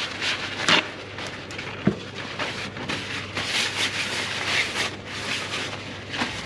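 Paper shop towel rustling and rubbing as it is crumpled and wiped over the metal surface of an electric motor's permanent-magnet rotor, with a sharp click just under a second in and a short knock about two seconds in.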